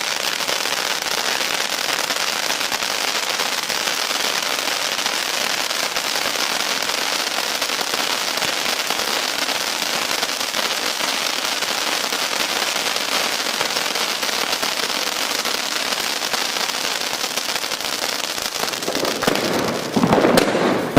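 Firecrackers going off in a dense, continuous crackle that holds steady for most of the time, changing to a rougher, lower sound near the end.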